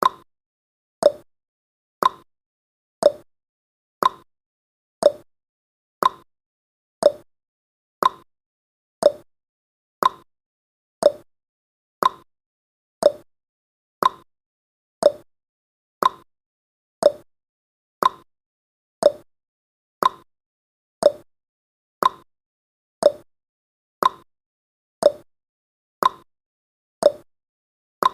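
Clock tick-tock sound effect of a countdown timer: a short, sharp click once a second, alternating between a higher tick and a lower tock.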